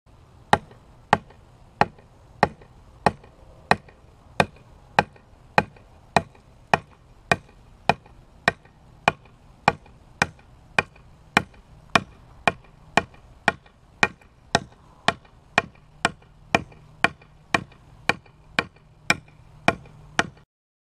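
Dawson Raider 5 fixed-blade knife chopping a 3-inch mesquite branch: a long, steady run of sharp chops into hard wood, a little under two a second. It cuts off suddenly near the end.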